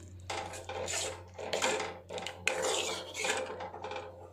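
Steel ladle scraping and stirring around a metal kadai of thick boiling tamarind-jaggery gravy, in a run of short rasping strokes.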